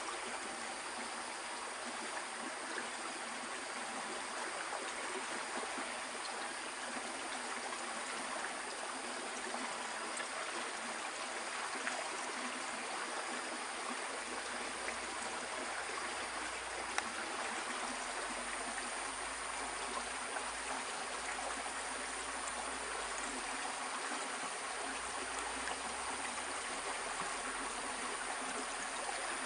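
Stream water flowing steadily over rocks: an even, unbroken hiss of moving water.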